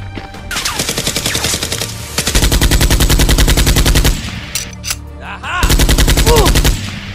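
Machine-gun sound effect: rapid automatic fire in two long bursts, the first starting about half a second in and growing louder until about four seconds, the second shorter, near the end, over background music.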